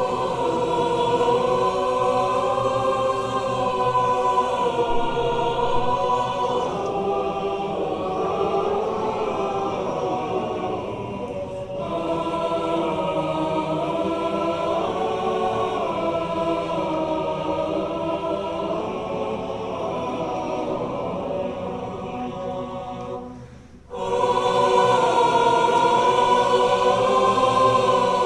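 Choir singing in harmony, many voices holding long chords. Near the end the singing dies away briefly, then resumes louder.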